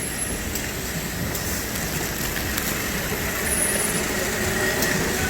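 Automated bottle-filling line running steadily: a constant mechanical din with scattered light clicks and a faint high whine.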